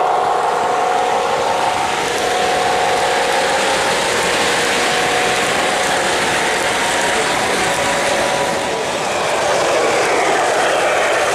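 O-gauge three-rail model train running past close up: the locomotive's and cars' wheels clatter steadily over the track, with a faint steady motor hum.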